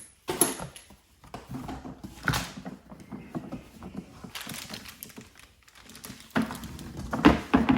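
Packaging rustling as parts are unpacked from a box, with several sharp knocks of hard plastic pieces being handled and set down.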